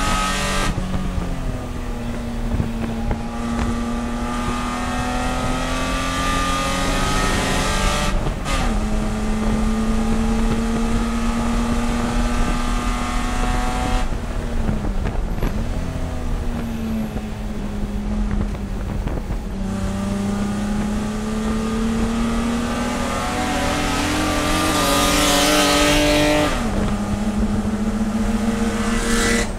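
Onboard sound of a Spec E30 BMW race car's straight-six engine at racing speed under load. The engine note holds high for several seconds at a time and drops sharply four times as the car lifts, brakes and shifts gear. A rush of wind and tyre noise swells just before the last drop.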